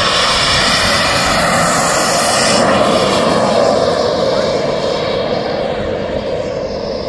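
KingTech 210 G4+ model jet turbine running at takeoff power as the RC jet races down the runway and lifts off: a loud, steady rushing jet noise with a thin high whistle that drops out about a third of the way through. The sound eases a little toward the end as the jet climbs away.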